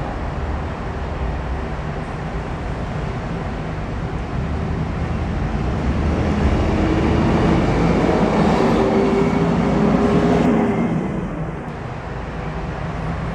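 Street traffic passing: a steady low rumble of engines and tyres that swells as a vehicle goes by close, from about six to eleven seconds in, carrying a steady engine hum, then eases back.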